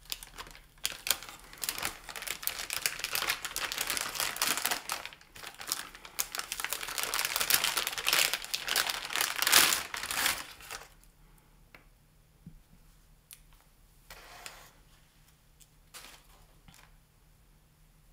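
Packaging being handled, with dense crinkling and rustling for about ten seconds as the wrapping is worked open, then only a few light clicks and brief rustles.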